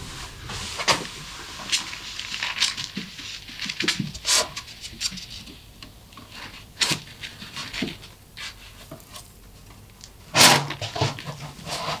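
Sparse light knocks and scuffs from a rabbit's paws on a hard floor and a wooden crate being lifted and tipped over, with one louder knock near the end.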